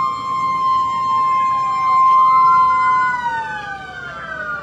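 A siren sounding loudly in two held tones, one wavering down and back up, then both falling slowly in pitch from about three seconds in as the siren winds down.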